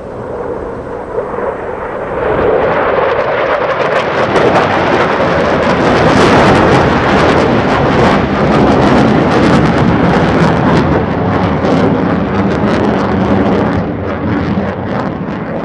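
Navy fighter jet flying past: its engine noise builds over about two seconds, stays loud with a crackling rasp, then fades near the end.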